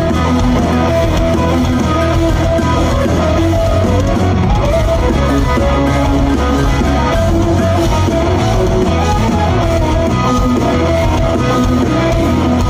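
Live rock band playing guitar-led rock music, loud and continuous.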